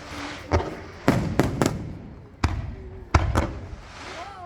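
Fireworks display: about seven sharp shell bursts in quick, uneven succession, with crackling between them.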